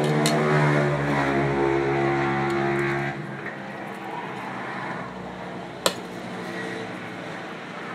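A steady motor hum with several pitched tones, loudest at first and dropping off sharply about three seconds in before carrying on more faintly. A single sharp click comes about six seconds in.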